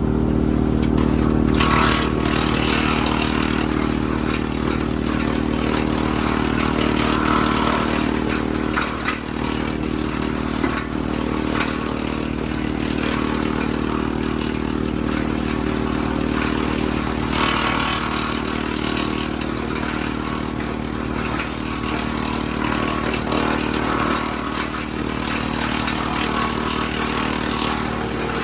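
Kubota L3901 diesel tractor running steadily, driving a WoodMaxx MX-8800 PTO wood chipper, with noisy spells of chipping several times as apple branches are fed in.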